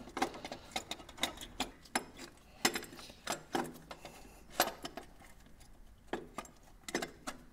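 Irregular metal clinks and knocks as a cast carburetor is worked by hand onto the intake manifold studs of an old forklift engine, a tight fit past the starter. The knocks are scattered, with a few sharper ones every second or so.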